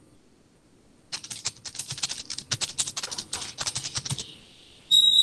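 Typing on a computer keyboard: a quick run of keystrokes lasting about three seconds. Near the end comes a short, loud, high electronic beep.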